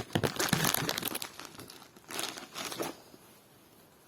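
Packaging crinkling and tearing as a shipping package is opened by hand, in several rustling bursts that die away after about three seconds.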